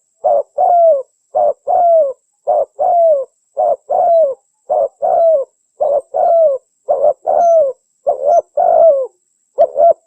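Spotted dove (terkukur) calling in a clean recording used as a lure: a short coo followed by a longer coo that falls at the end, the pair repeating about once a second.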